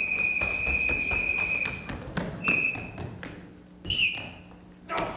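A police whistle blown in one long blast, then two short blasts about 2.5 and 4 seconds in, the last one dropping in pitch. Feet thud and tap on a stage floor during the long blast.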